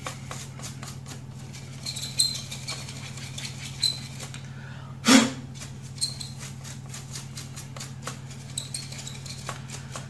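Small brush scrubbing dust off a laptop's cooling fan: short bursts of dry, scratchy bristle strokes and light ticks, with one louder knock about five seconds in, over a steady low hum.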